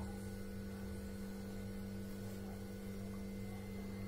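Steady electrical mains hum, an even low tone with fainter overtones that does not change. No knife strokes stand out above it.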